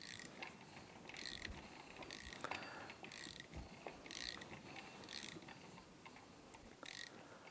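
Hand ratchet on the crankshaft bolt turning a Yamaha Raptor 700R engine over by hand, its pawl clicking faintly in short runs about once a second. The engine is being rotated to check that the newly fitted piston and cylinder turn smoothly.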